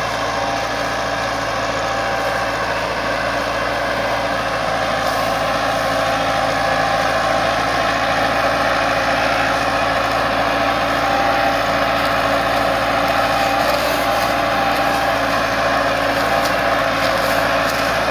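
Diesel farm tractor engine running steadily under load as it hauls a heavily loaded trolley, growing slightly louder as it comes closer.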